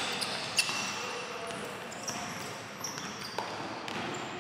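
Basketball bouncing on a hardwood court, with a few sharp bounces, amid short high-pitched sneaker squeaks from players moving on the floor.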